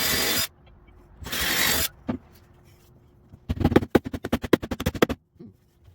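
Two short bursts of even hiss, the first cutting off about half a second in, the second about a second later, then a rapid run of sharp mechanical clacks, about ten a second for under two seconds.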